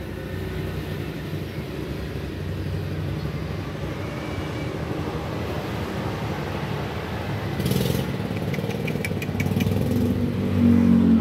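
Motor vehicle engine running steadily, getting louder over the last few seconds, with a short hiss and a few light clicks shortly before.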